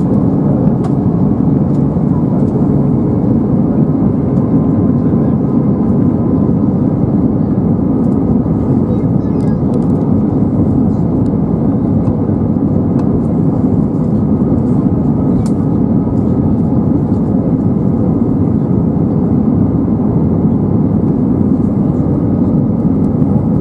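Steady cabin roar of an Airbus A320-232 in descent, heard from a window seat beside the wing: airflow over the fuselage mixed with its IAE V2500 engines, a low, even roar with no changes.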